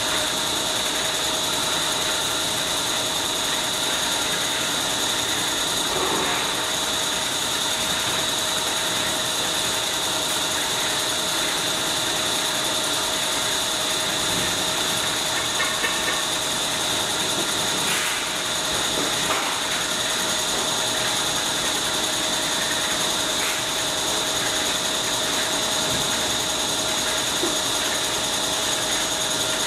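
Paper rope making machine (model HZT-A) running steadily, its twisting heads and drive turning with a constant mechanical whir and several steady high tones. A few faint clicks come through now and then.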